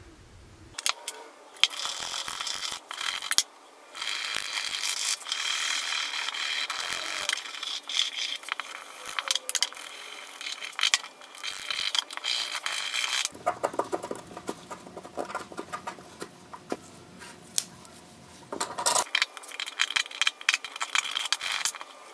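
Scrubbing and scraping at old paint on the cast iron body of an antique hand plane. Long spells of dense scraping, with a short break about three seconds in and a lighter stretch of clicks and scrapes past the middle before it picks up again near the end.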